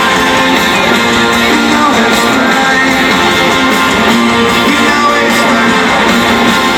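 Live rock band playing, led by strummed guitars, loud and steady, with no singing heard.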